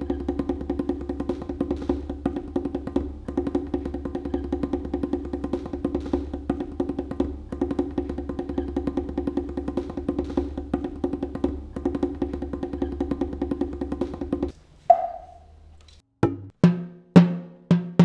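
Soundtrack music with fast wood-block-like percussion ticking over a held drone. It stops suddenly about two-thirds of the way in, a short falling tone follows, and then sharp drum hits start about twice a second.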